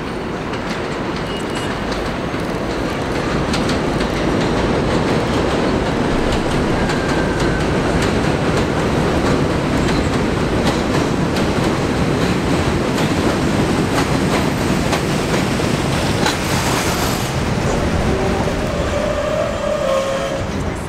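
Budd-built R32 subway train pulling into an elevated station. The wheels clatter over the rail joints and grow louder over the first few seconds as it nears, then hold steady as the cars run alongside the platform. A faint squeal comes near the end as it slows.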